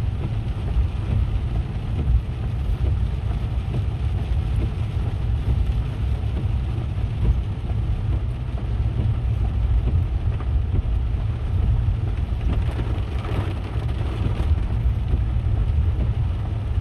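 A car driving on flooded, wet roads, heard from inside the cabin: a steady low rumble with a wet hiss over it, a little stronger about two-thirds of the way through.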